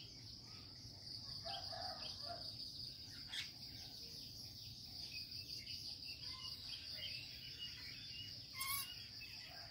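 Insects trilling in a steady, high drone, with faint scattered bird chirps over it and a brief sharp chirp near the end.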